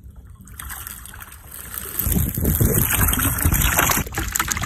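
Wind buffeting the microphone aboard a moving boat, with water rushing past. The gusts grow louder about two seconds in.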